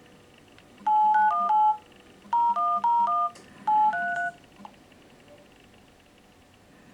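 Samsung Galaxy phone sounding an electronic beep melody: three quick phrases of paired tones, a few notes each, with short pauses between them.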